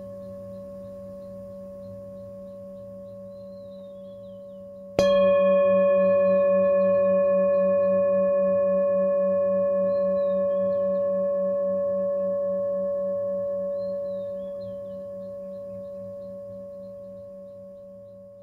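Singing bowl ringing, struck again about five seconds in: a sharp strike followed by a long, slowly fading ring with a wavering low hum beneath.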